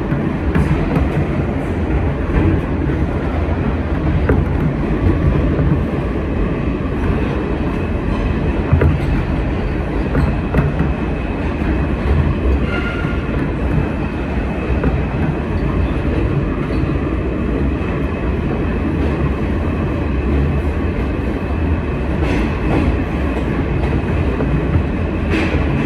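R160B subway train running along the track, heard on board: a steady rumble of wheels on rail with some clickety-clack.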